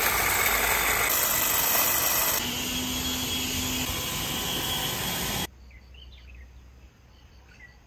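Cordless battery leaf blower running, a steady rush of air. It gets a little louder and hissier about a second in, softer about two and a half seconds in, and cuts off abruptly after about five and a half seconds. Faint birdsong follows.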